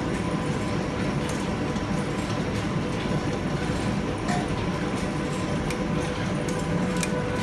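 Metalworking lathe running steadily: a constant motor whine over a hum, with a few light clicks.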